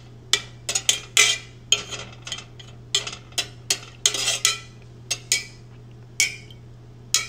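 Metal spoon stirring melted candle wax in a metal pot, clinking and scraping against the sides in quick, irregular strokes to dissolve the dye. A steady low hum runs underneath.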